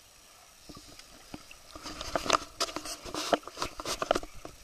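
Water splashing as a rainbow trout is grabbed and lifted out of the water by hand, a rapid run of irregular splashes from about two seconds in.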